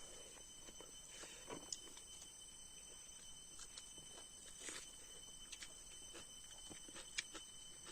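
Faint eating sounds: scattered small clicks and soft smacks from chewing and handling food, over a few faint steady high-pitched tones.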